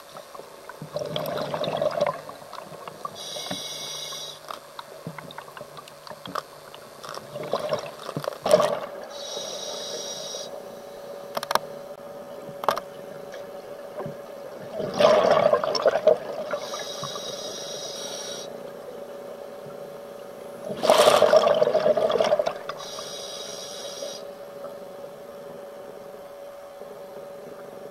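Scuba diver breathing through a regulator underwater: a rush of exhaled bubbles, then a hiss from the demand valve on each inhale, repeating about every six seconds. A faint steady hum runs underneath.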